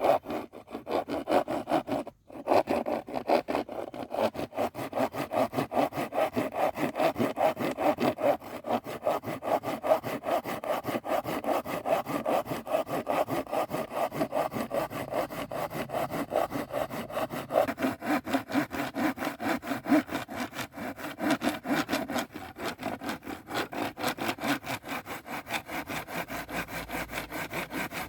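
Hand saw cutting through wood in quick, even back-and-forth strokes, about three a second, with a brief pause about two seconds in.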